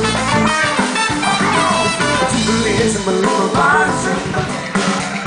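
Live band music in a steady groove, with drums, guitar and a lead melody line bending up and down in pitch.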